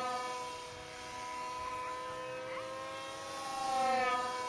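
Electric motor and propeller of an Osborne Platter control-line model plane, running with a steady buzzing whine as it circles. It swells as the plane passes closest about four seconds in, and its pitch dips slightly as it goes by.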